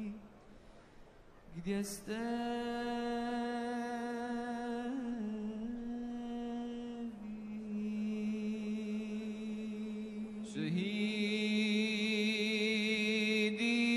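Chanted vocal music of long, steady held notes. It is nearly quiet for the first two seconds, then a note slides up into a long hold, and a fresh note begins about ten and a half seconds in.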